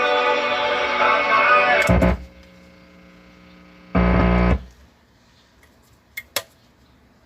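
Music playing through studio monitor speakers, cut off abruptly about two seconds in. About two seconds later there is a short burst of low mains hum, then two sharp clicks near the end.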